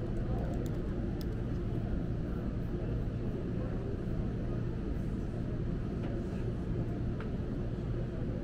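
Steady low background hum of a bookstore café, with a few light clicks from laptop keys and trackpad, mostly in the first second or so and once more near the end.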